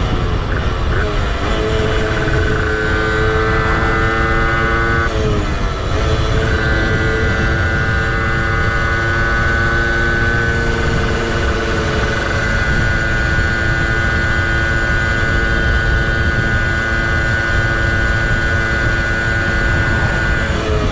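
Tuned Athena 70cc two-stroke engine of a 1967 Zündapp 517 moped running at high revs under load, with heavy wind rush. The engine note briefly dips and breaks off about five seconds in, then holds steady and high.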